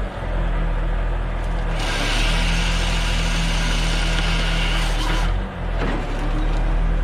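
Heavy machinery engine running steadily at a low hum. About two seconds in, a loud hissing, rasping noise joins it for about three and a half seconds, then cuts off suddenly.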